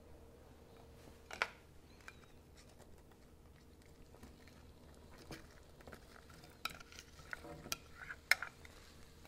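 A spatula scraping and tapping against a bowl and frying pan as chopped vegetables are tipped into the pan. The sound is a few scattered clicks and knocks, busier towards the end, with the sharpest knock near the end.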